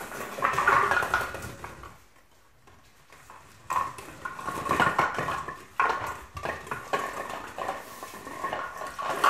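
Collie puppy knocking, pushing and biting empty plastic bottles across a wooden floor: irregular hollow clattering and crackling of plastic, with a quiet gap of about a second and a half around two seconds in.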